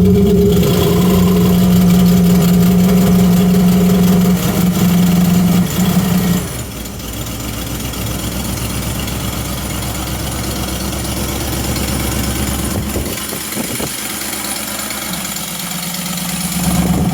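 Freshly rebuilt Ford 351 small-block V8 running on choke just after a cold start. It drops in level about six seconds in, then runs on steadily at idle.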